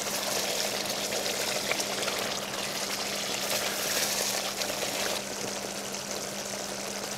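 Venison curry with tomato passata sizzling and bubbling as it fries in an enamelled cast-iron pot, a steady hiss that eases slightly after about five seconds. A steady low hum runs underneath.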